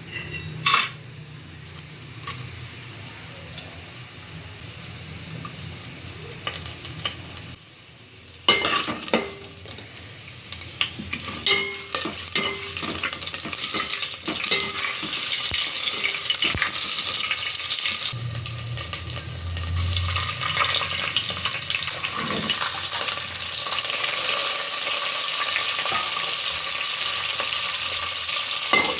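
Food frying in a pan, stirred with a metal spoon: clinks and scrapes over a sizzle that grows into a steady, louder hiss about halfway through.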